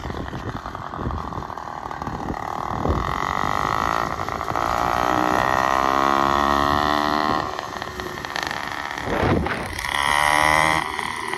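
Small two-stroke bicycle engine kit running with its bottom exhaust removed, effectively straight-piped, giving a loud buzz as the motorized bike rides past. The buzz swells for a few seconds, drops off, then comes back loudest near the end, heard up close from the handlebars.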